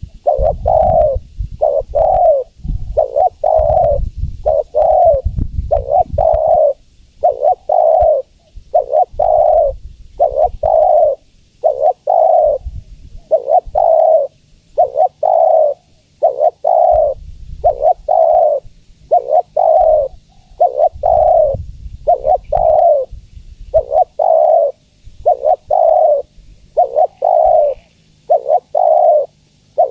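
Spotted dove cooing, a steady run of short repeated coos a little over one a second, with a low rumble underneath at times.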